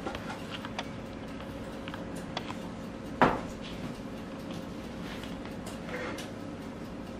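Light handling sounds of pie crust being fitted into a pie pan on a stainless steel counter: scattered soft taps and clicks, with one louder knock about three seconds in, over a steady room hum.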